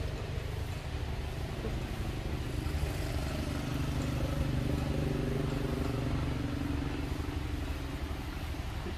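Motor vehicle engine running, its hum rising in loudness through the middle and fading again toward the end, over a steady low rumble.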